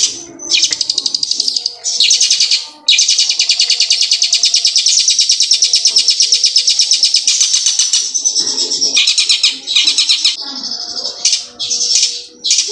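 Caged long-tailed shrike (cendet) singing loud, fast rolling trills of rapidly repeated high notes, the learned 'ciblek gunung' song. One long unbroken trill runs from about three seconds in to about eight, with shorter bursts before and after it.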